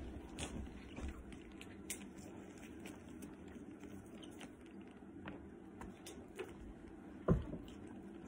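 Light rustling and small clicks of hands wrapping a silk twilly scarf around a leather handbag handle, with one louder knock about seven seconds in.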